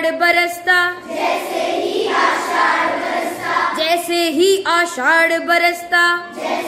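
A class of schoolchildren singing a Hindi poem together in chorus. Clearer sung phrases with distinct pitch come near the start and again from about four seconds in, with a blurred sound of many voices between them.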